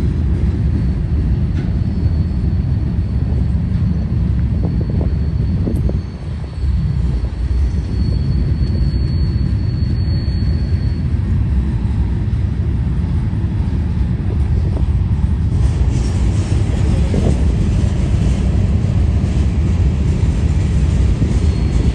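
Union Pacific manifest freight cars rolling past: a steady, loud rumble of steel wheels on the rails. A faint high whine runs through the first half.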